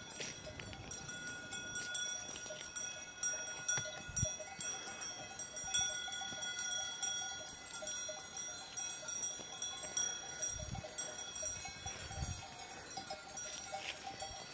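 Bells on walking cattle clanking and ringing without pause, with a few dull low thumps.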